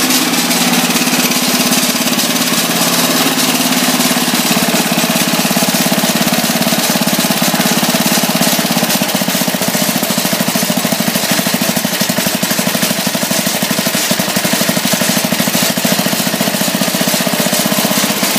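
Garden tractor's small air-cooled engine running steadily, with a rapid, even firing rhythm.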